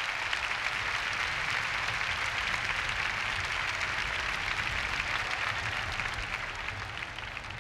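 Congregation applauding, a dense steady clapping that starts to die down near the end.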